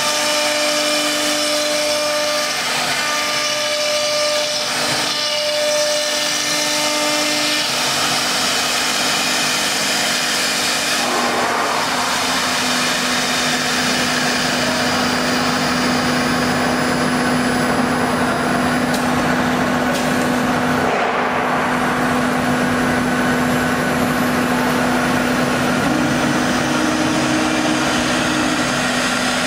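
Spindles of a STYLECNC STM1325-3T three-spindle CNC router running and routing a wooden door panel: a steady whine over the rasp of the cut. About eleven seconds in, the whine drops to a lower steady tone.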